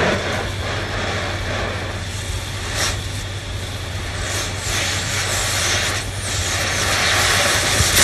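Cutting torch flame hissing steadily against a steel pipe as it preheats the metal for a cut, with a few short louder hisses.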